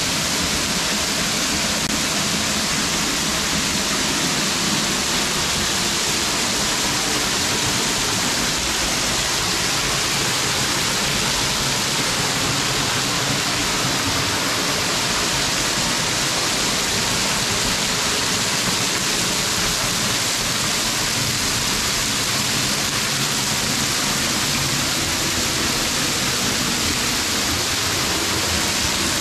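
Waterfall splashing onto rocks and into a shallow pool: a steady, unbroken rush of falling water.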